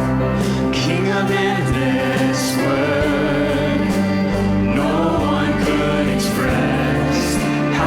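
Church worship music: a choir and worship band performing a gospel-style song, with voices singing over sustained instrumental chords.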